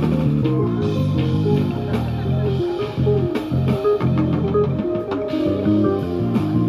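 Roland GO:KEYS digital keyboard playing a tune with a bass line and a steady beat.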